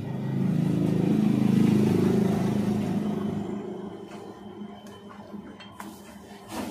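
A passing motor vehicle's engine rumble swells over the first two seconds and fades away by about four seconds in. A couple of faint knocks from the cleaver on the wooden block follow near the end.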